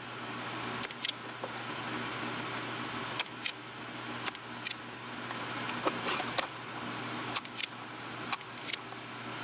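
Steady hum of a running fan, with scattered light clicks and taps from desoldering capacitors off a circuit board with a heated solder sucker.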